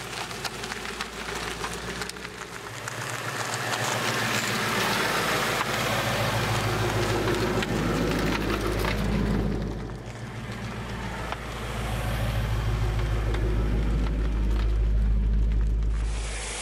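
Ford Mustang GT's 5.0-litre V8 engine and exhaust running, the note swelling in level twice with a brief dip in between.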